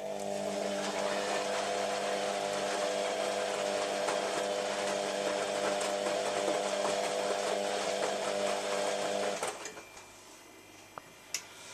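Beko WM5101W washing machine running mid-cycle: a steady motor whir with a hum. It cuts off suddenly about nine and a half seconds in, followed by a couple of faint clicks.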